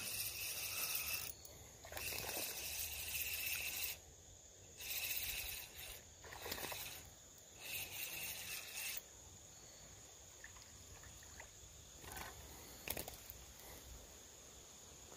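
Fishing reel cranked in bursts of one to two seconds each over the first nine seconds as a hooked smallmouth bass is brought in, then a few faint clicks.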